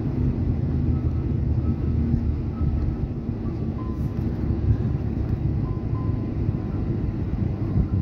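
Boeing 737 airliner heard from inside the cabin as it rolls along the runway: a steady, loud low rumble of the jet engines and the wheels on the tarmac.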